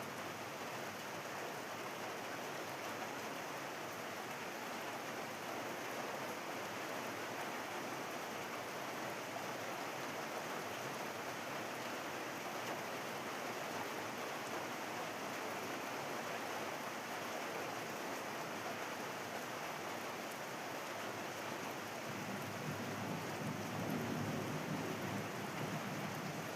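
Heavy rain falling steadily, a dense even hiss. In the last few seconds a low rumble swells under it.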